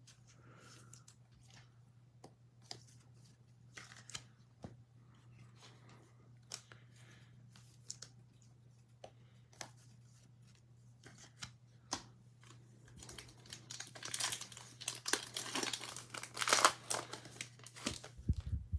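Scattered light clicks, then a trading card pack wrapper being torn open and crinkled, densest in the last five seconds or so.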